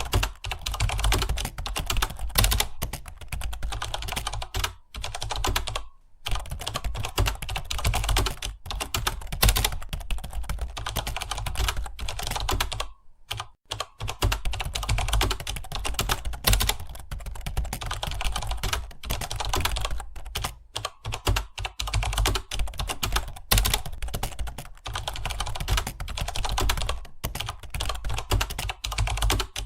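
Computer keyboard being typed on quickly and continuously, a steady rapid clatter of keystrokes with brief pauses about six and thirteen seconds in.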